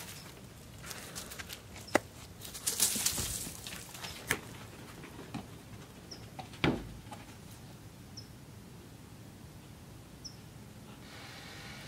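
Quiet outdoor sounds of a dog moving about a yard: a brief rustle of dry leaves and dirt, and a few sharp clicks and knocks, the loudest about halfway through. A short high chirp repeats about every two seconds, and a faint steady hum comes in near the end.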